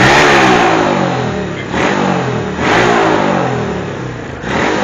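Small racing engines at full throttle, launching off the line in a drag race. Their notes sweep in pitch, with fresh loud surges near the start, about three seconds in and near the end.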